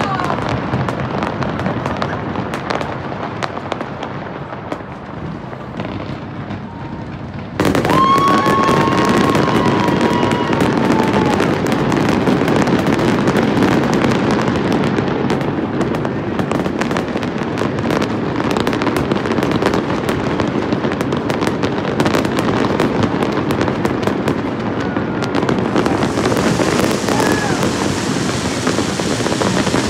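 Fireworks display: a dense, continuous barrage of bangs and crackling bursts, which jumps suddenly louder about eight seconds in and stays there.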